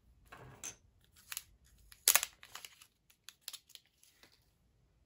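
Thin protective plastic film being peeled off and handled: a run of short crackles, rustles and clicks, the sharpest about two seconds in, dying away after about four seconds.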